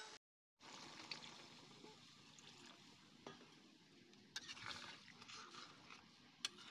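Faint simmering of a watery crab curry in an iron kadai, with a few light clicks of a steel spoon against the pan as it is stirred.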